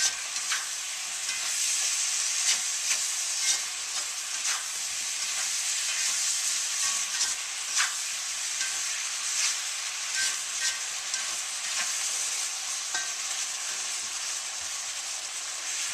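Chicken, carrots and baby portobello mushrooms sizzling in a wok on high heat, with a steady hiss and now and then the short clack of a utensil stirring against the wok.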